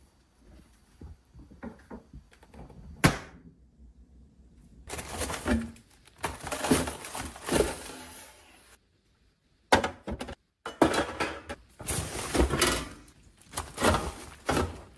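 Household items being handled: a sharp knock about three seconds in, then bursts of rustling and clattering, broken by a moment of dead silence partway through.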